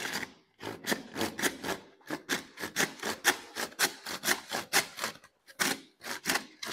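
Hand wood saw cutting through 110 mm plastic drainage pipe, in quick back-and-forth rasping strokes, about three a second, with a brief pause past halfway.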